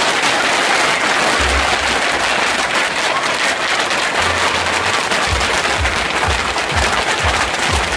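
Dense, continuous crackle of many bubble-wrap bubbles popping under a crowd of children's stomping feet, with music playing underneath.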